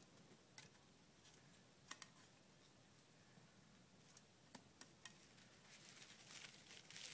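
Faint, scattered crackles and clicks of dry bark tinder, coming more often near the end.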